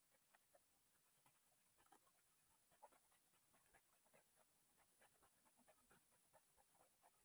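Near silence, with faint scattered irregular ticks and a thin steady high-pitched hiss.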